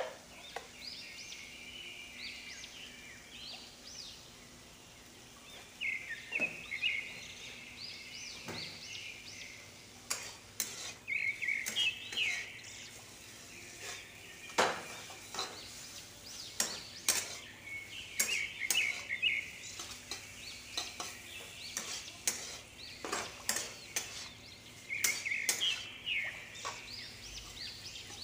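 A metal spatula scraping and knocking against a kadhai as sliced vegetables are stirred, irregular clatter from about ten seconds in. A bird sings short chirping phrases in the background every few seconds.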